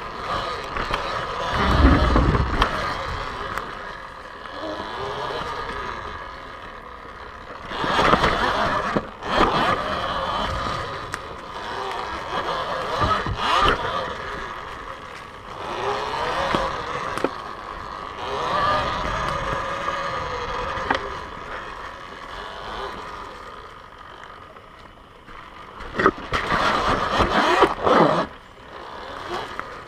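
Talaria xXx electric dirt bike being ridden hard: the electric motor and drive whine up and down in pitch in repeated surges as the throttle is opened and closed, over knobby tyres running on dirt and leaves. There is a low thump about two seconds in.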